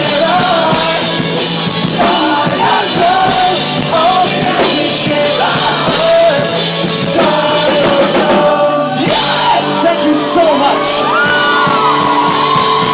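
Pop-punk band playing live with sung and shouted vocals over full band accompaniment, with a momentary break in the music about two thirds of the way through.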